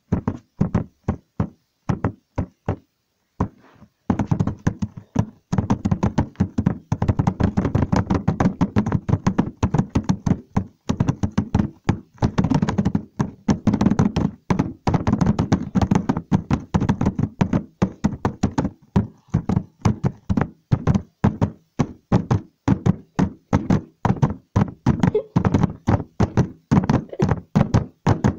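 Rapid, irregular knocking, several knocks a second, with a muffled low background underneath from about four seconds in.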